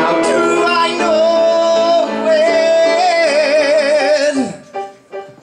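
A man singing one long, high held note with piano accompaniment, the vibrato widening toward the end before the voice slides down and stops. Soft, evenly spaced piano chords follow near the end.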